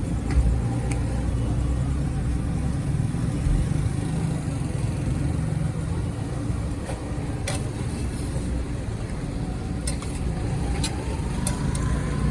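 Steady low rumble of street background noise, with a few short sharp clicks in the second half.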